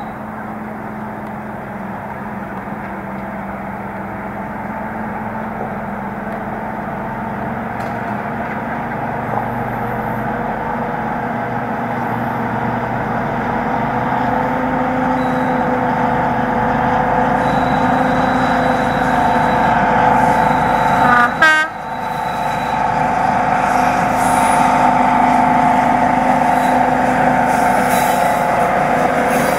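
Class 55 Deltic diesel locomotive's twin Napier Deltic two-stroke engines working under load, a steady drone with several held tones, growing louder as the train approaches and runs past. About two-thirds of the way through, a brief warbling dip in the sound.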